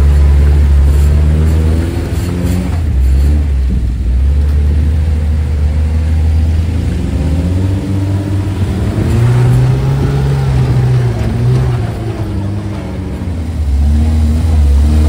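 Off-road vehicle engine running through the terrain, its revs rising and falling, with a clear climb in pitch about nine to ten seconds in before it drops back.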